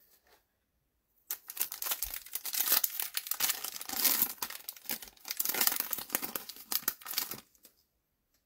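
A foil trading-card pack being torn open and its wrapper crinkled: a dense run of crackling that starts a little over a second in and lasts about six seconds.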